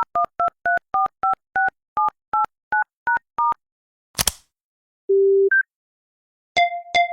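Old iOS phone keypad dialing tones: about a dozen short two-tone beeps, roughly three a second. After them come a brief sharp burst of noise, a short low tone followed by a quick higher blip, and two quick beeps near the end.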